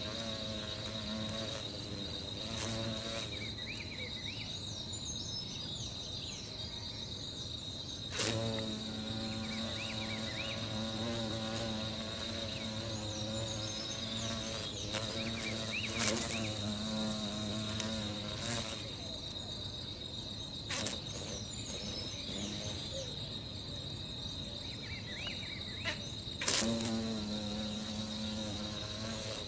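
Buzzing of a flying beetle's wings, a low droning hum that swells and fades several times, over a steady high-pitched insect trill with short chirps, broken by a few sharp clicks.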